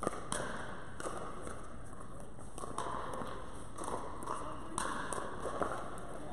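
Pickleball paddles hitting a plastic pickleball in a rally: a handful of sharp pocks at irregular intervals, ringing in a large indoor court hall.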